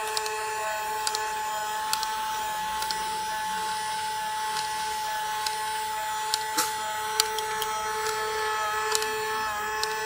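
Battery-operated plastic fish toy running: a steady whine from its small motor and gears, with a lower tone pulsing on and off and scattered sharp plastic clicks.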